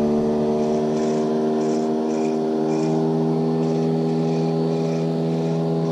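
Outboard motor of a passing motorboat running with a steady drone that holds the same pitch throughout.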